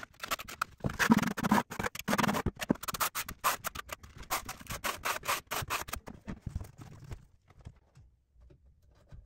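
Notched steel trowel scraping thinset mortar across the back of a large tile in quick repeated strokes, stopping about six seconds in.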